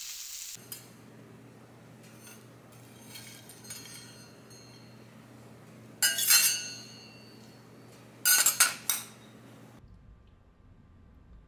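Tableware clinking as a teppanyaki steak is finished: a frying sizzle cuts off just after the start, a few light clinks follow, and then two loud clusters of ringing clinks come about six and eight seconds in.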